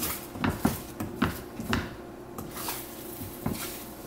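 Silicone spatula stirring and scraping scrambled eggs around a nonstick frying pan, with a handful of short scrapes and taps against the pan.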